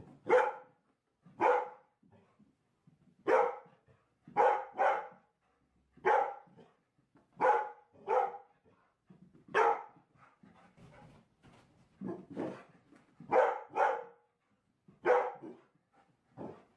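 Dog barking repeatedly, short single barks and quick pairs at roughly one a second.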